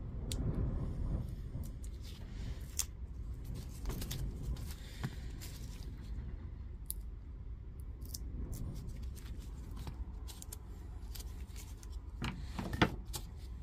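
Light clicks and taps of 18650 lithium-ion cells and their ring insulators being handled on a workbench. Near the end comes a quick cluster of sharper knocks, one of them loud.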